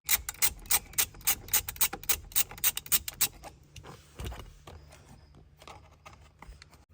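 Ratchet wrench clicking quickly on the bolts behind the steering wheel, about five or six clicks a second for roughly three seconds, then a single knock and quieter handling.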